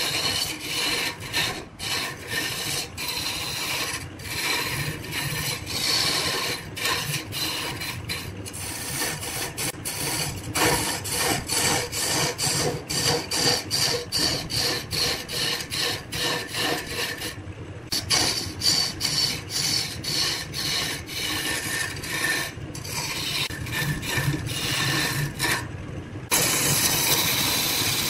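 Wood lathe spinning a wooden blank while a hand-held turning chisel cuts into it: a continuous rasping, scraping shaving noise, broken by a few brief gaps.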